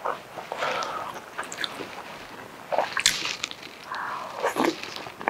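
Luosifen rice noodles being slurped and chewed: two longer slurps, one about a second in and one near the end, with short wet mouth clicks between them.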